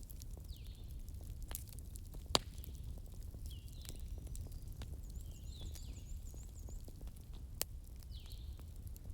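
Bonfire burning with a steady low rumble and scattered sharp crackles and pops, the loudest pop about two seconds in and another near the end. Short high chirping calls from an animal come every couple of seconds, with a quick run of chirps in the middle.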